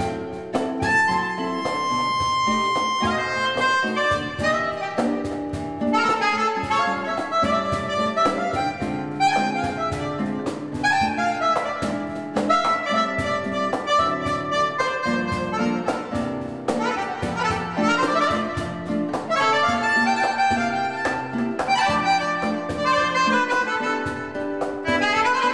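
A small jazz ensemble playing live: a vibrandoneon, a blown free-reed keyboard instrument, plays a reedy melody over acoustic guitar and percussion.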